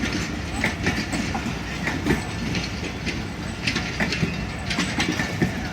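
Passenger train rolling past, its wheels clattering irregularly over the rail joints over a steady rumble.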